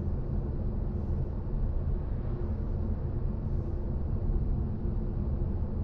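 Steady low road and tyre rumble of a BMW i4 M50, an electric car, driving along; there is no engine note.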